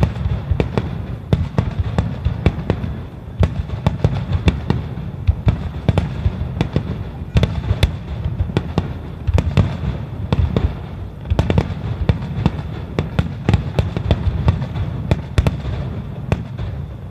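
Rapid barrage of aerial firework shells bursting, one sharp bang after another several times a second over a continuous low rumble of blasts.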